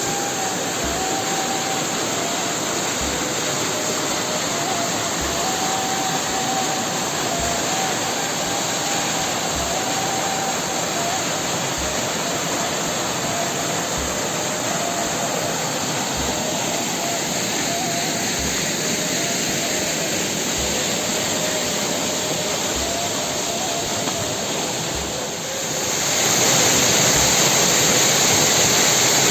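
Steady rush of a waterfall, with faint background music (a thin melody over a soft beat about once a second). Near the end the water gets louder and brighter.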